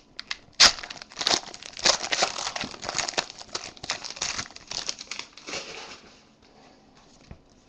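A foil trading-card pack wrapper being torn open and peeled off by hand: a sharp tear about half a second in, then crinkling of the foil as it is pulled off the cards.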